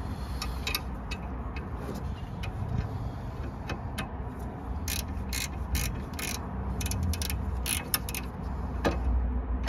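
Metal spanners clicking against the rear brake caliper's brake pipe union as the fitting is held and loosened: a run of sharp metallic clicks, thickest in the second half.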